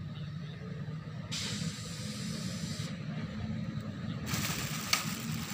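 A steady low motor hum, like an engine running nearby, with two bursts of hissing noise, the first about a second in lasting about a second and a half, the second starting about four seconds in.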